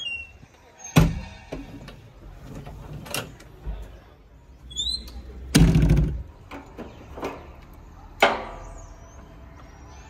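Heavy earth-moving machinery working over a low engine rumble, with four loud metal clanks and bangs about two seconds apart; the heaviest and longest comes a little past the middle.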